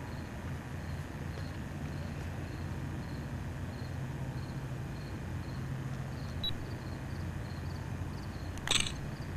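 Night-time outdoor ambience: a steady low hum of distant traffic, with a faint insect chirp repeating a little under twice a second. A single sharp snap sounds near the end.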